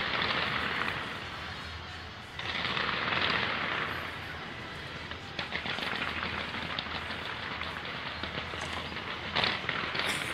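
Fireworks display firing. Two surges of hissing, rushing noise come in the first four seconds, then a rapid, dense crackling and popping, with a couple of sharper bangs near the end.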